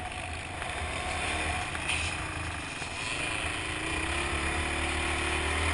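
ATV engine running under way, its pitch climbing in the second half as it accelerates, with a steady rumble and rush of noise around it.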